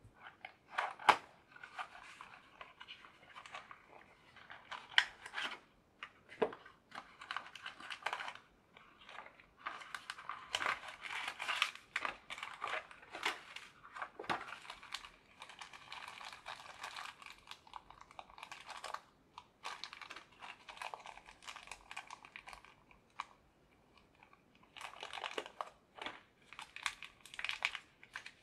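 Plastic packaging crinkling and rustling as it is handled by hand, with irregular crackles and a few sharp clicks. The loudest clicks come about a second in and about five seconds in, and the crinkling eases off briefly near the end before starting again.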